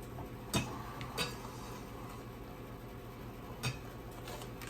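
Three light knocks of a mixing bowl and utensils set down on a kitchen counter, about half a second, a second and three and a half seconds in, over a steady low hum.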